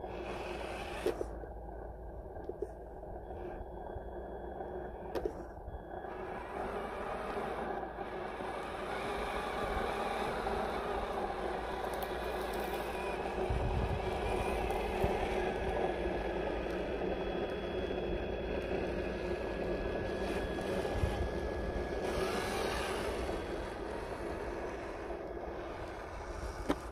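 RC rock crawler (HG-P411, Land Rover Defender body) crawling over a loose dirt slope: its 540 brushed electric motor and geared drivetrain whine steadily, with loose gravel crunching under the tyres and a few sharp clicks.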